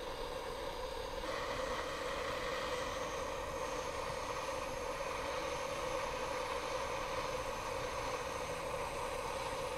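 Handheld butane gas torch burning with a steady hiss as its flame is played onto lump charcoal in a shichirin grill to light it.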